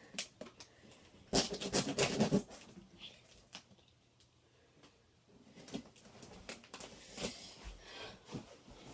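Handling noises from unpacking a boxed scooter: scattered clicks, rustles and knocks of packaging and parts, busiest from about one and a half to two and a half seconds in.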